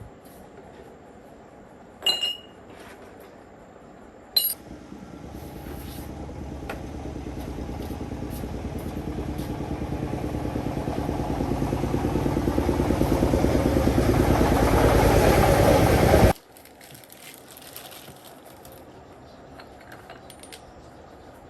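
Two short metallic clinks, then a machine motor running with a fast, even pulse, growing steadily louder for about twelve seconds before it cuts off suddenly.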